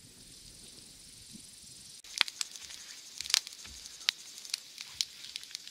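Brushwood campfire crackling and hissing, with sharp irregular pops, the loudest about two seconds in and again a second later. Before it, for the first two seconds, there is only a faint steady high hiss.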